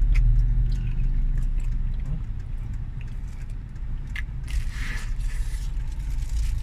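Steady low hum of a car engine idling, with a person biting and chewing a burger and its plastic wrapper crinkling; the crinkling is loudest about five seconds in.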